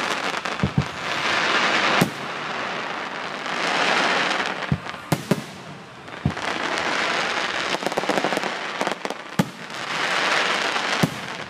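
Aerial fireworks going off: several sharp bangs of shells bursting, spread through the stretch, between spells of dense crackling, each swelling and fading over about two seconds.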